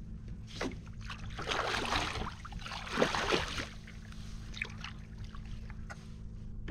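Water sloshing and knocking around a small boat, loudest for about two seconds in the middle, over a steady low hum.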